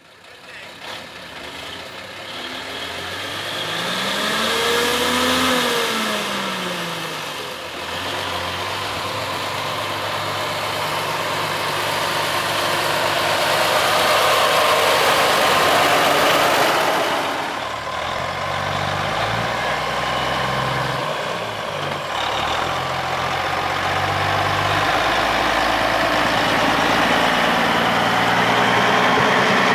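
Antique truck engines running and idling. About four to seven seconds in, one engine revs up and back down.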